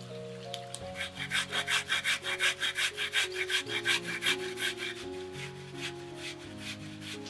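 Fast rhythmic scraping strokes, about five a second, for about four seconds, over background music.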